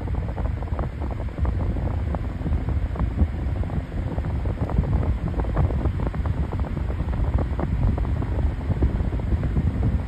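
Circa-1939 Arctic Aire desk fan running, its airflow blowing straight onto the microphone as a loud, gusty rush of wind buffeting.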